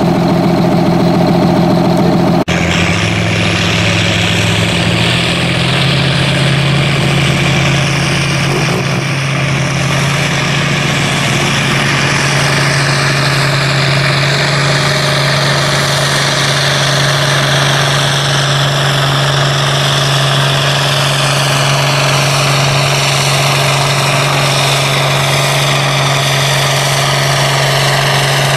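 Pulling tractor's diesel engine running flat out, dragging a weight-transfer sled down the track, with a steady deep engine note and a high whine that slowly falls in pitch over the second half. The first couple of seconds hold a different tractor engine idling, which cuts off abruptly.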